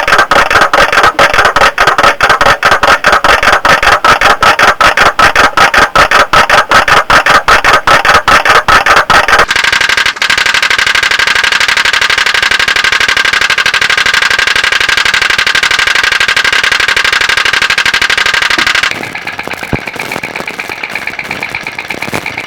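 Toy pop-pop (putt-putt) steam boats running. The first is a rapid, even popping of about five pops a second. About ten seconds in it gives way to a steadier, higher buzzing hum. Near the end a quieter, faster ticking takes over.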